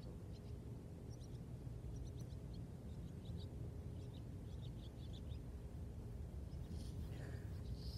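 Birds chirping now and then in short, high calls over a steady low outdoor rumble.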